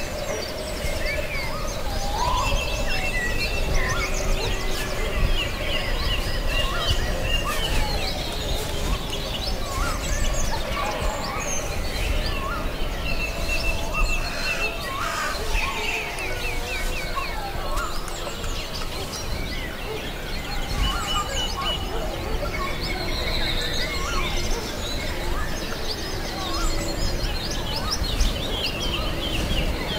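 Woodland bird chorus: several songbirds singing and chirping over one another throughout, over a steady low background rumble.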